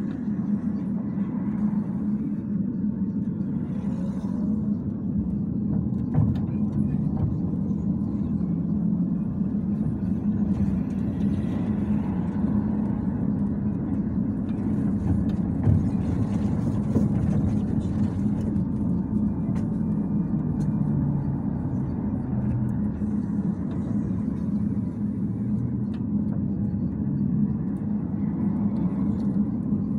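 Bogdan T701.10 trolleybus running, heard from inside the cabin: a steady low hum and rumble, with a few small knocks and rattles.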